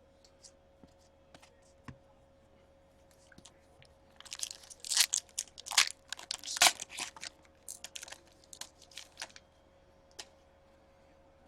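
Crinkling and crackling of a trading-card pack wrapper being handled, in a dense flurry of sharp crackles through the middle, with scattered light clicks before and after. A faint steady hum runs underneath.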